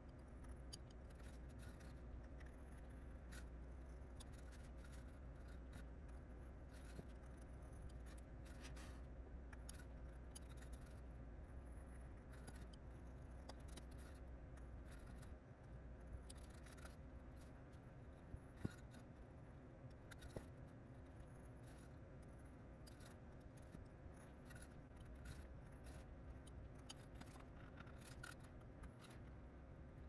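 Wooden-handled carving knife slicing into a thin wooden board: a string of faint, short, crisp snicks as the blade cuts feather lines, with a couple of slightly louder ticks a little past halfway, over a low steady hum.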